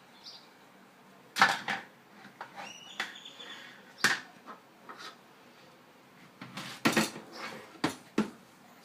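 Dishes and cutlery being handled at an open dishwasher, with a series of separate sharp clinks and knocks. Several of them bunch together near the end.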